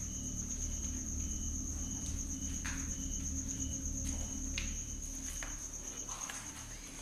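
Crickets trilling steadily in a high, fine pulsing tone, with a second insect chirping in short regular pulses about twice a second until about four and a half seconds in. Under it runs a low steady hum, with a few faint scuffs.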